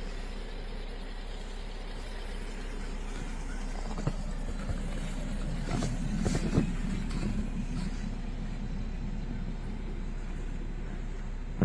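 Steady road-vehicle noise, a low rumble with a few brief knocks about four seconds in and again around six to seven seconds.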